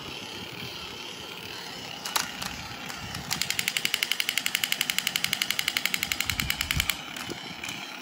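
Battery-operated crawling-soldier toy dressed as Captain America: a knock about two seconds in, then a rapid electronic machine-gun sound effect of about eleven shots a second for about three and a half seconds.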